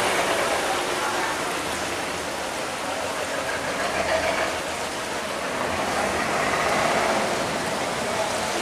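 Strong river current rushing through an open sluice gate and churning against the hull of a loaded wooden cargo boat, a steady, even water noise.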